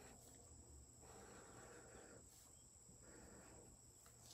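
Near silence: a faint steady high-pitched whine, with two soft strokes of a felt-tip marker drawing on tracing paper.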